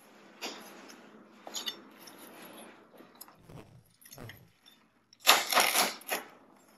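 A large kitchen knife cutting a crisp tortilla chip on a stainless steel worktop: faint rustles and taps of the gloved hand and blade, then, about five seconds in, a loud burst of crunching and cracking as the blade presses down and breaks the chip, with the blade knocking on the steel.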